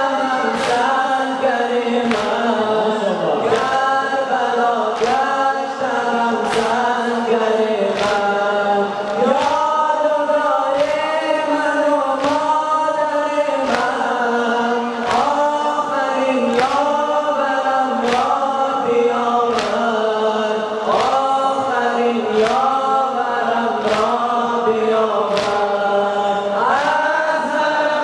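Several male voices chanting an Afghan noha lament in unison through a PA. Mourners strike their chests together about once a second, keeping the beat of the sina zani.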